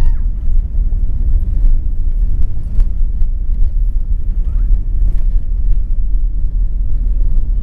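Airbus A380-800 airliner cabin noise during the takeoff run or climb: a loud, steady low rumble with a few faint knocks.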